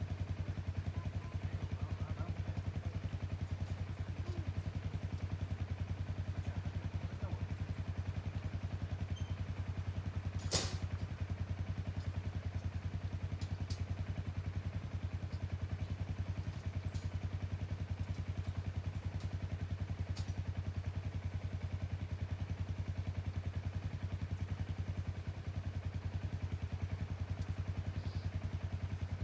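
An engine idling steadily, a low even hum with a rapid regular pulse. A single sharp click sounds about ten and a half seconds in, with a few fainter ticks.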